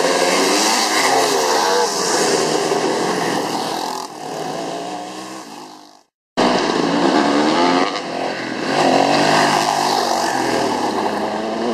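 Several vintage pre-1985 enduro dirt bikes running hard past at full throttle, their engine notes rising and falling as they go by and fading off about four seconds in. After a brief dropout, more bikes rev up and approach.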